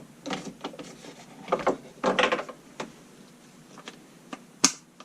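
Chainsaw side-cover nut and easy-adjust bar tensioner being loosened and backed off by hand: a series of short plastic-and-metal scrapes and rattles, with a sharp click near the end.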